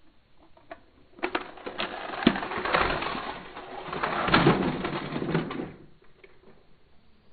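A Thomas & Friends Adventures toy engine rattling down a plastic chute and around a plastic loop track, a dense clatter of small knocks that starts about a second in and stops suddenly after about four and a half seconds as the engine comes to rest on the track.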